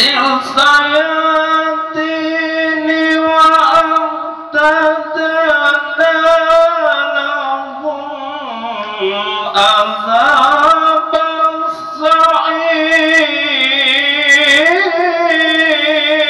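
Music: a single melodic line of long held notes that slide and waver, sinking lower about halfway through and climbing back.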